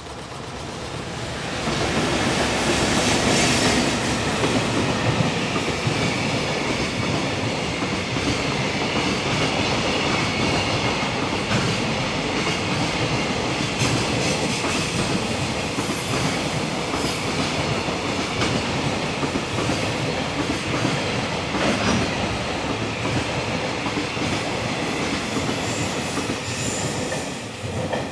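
JR Freight EF210 electric locomotives passing at close range, followed by a long train of container flatcars, their wheels clattering over the rail joints with a faint high squeal on the curve. The noise builds over the first two seconds and falls away near the end as the last wagon goes by.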